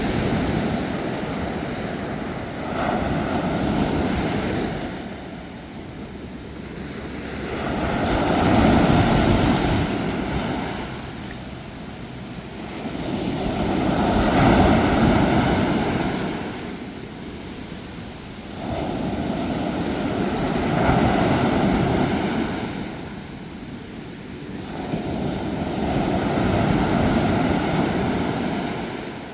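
Sea waves breaking and washing up the shore, a rushing roar that swells and ebbs in surges about every five to six seconds.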